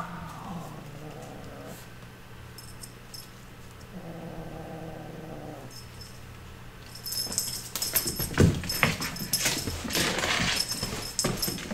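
Kittens pouncing on a feather wand toy dragged over a shaggy rug: loud scratchy rustling and swishing with sharp clicks and a little metallic jingling, starting about seven seconds in. Before that, two faint, low, drawn-out sounds.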